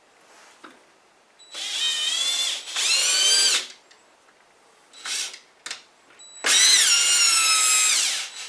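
Electric drill with a small bit drilling pilot holes: four trigger pulls, the motor whine rising and falling in pitch as it speeds up and slows, with a short blip in the middle and the longest run near the end.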